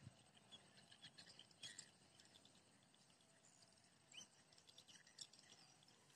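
Near silence: faint outdoor ambience with a few soft, scattered high chirps and ticks.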